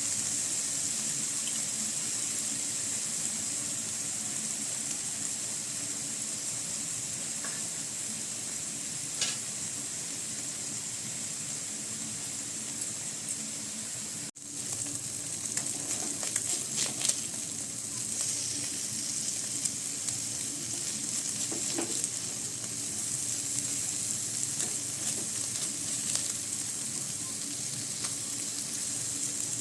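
Small fish sizzling as they fry in hot oil, a steady hiss that breaks off for an instant about halfway through. Clicks and scrapes of stirring in the pan come in the second half.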